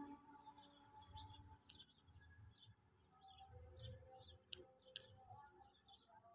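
Near silence with faint high chirping in the background and three sharp clicks, the last two about half a second apart.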